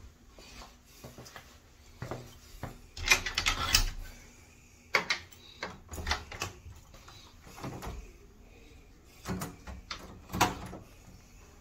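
Handling noise from a phone carried against a padded jacket and backpack strap: irregular rustling and knocks as the fabric and strap rub and bump the microphone, the busiest stretch about three to four seconds in.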